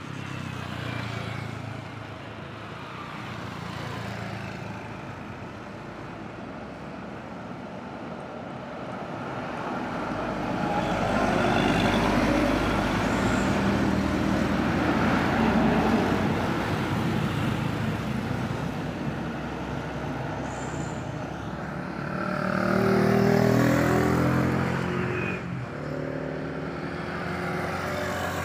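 Road traffic at a bend. A light diesel truck and a motorcycle pass close by about halfway through, the loudest part, and another vehicle's engine passes near the end.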